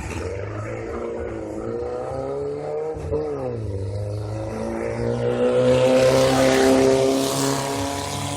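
Off-road race car engine revving hard. Its pitch climbs, drops sharply about three seconds in, then climbs again, and it is loudest from about five to seven and a half seconds in.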